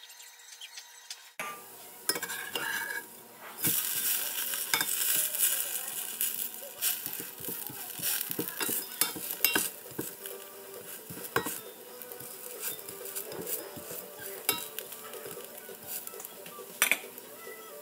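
Grated potato hash brown sizzling in oil in a cast iron skillet, with a metal spatula scraping and clicking against the pan as it is worked under the hash brown. The sizzling starts about a second in.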